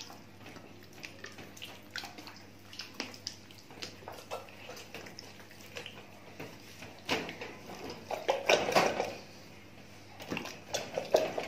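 Hands rubbing a raw duck with a wet paste of salt, lemon and flour: wet squelching and slapping, at first sparse and soft, then louder and busier over the second half.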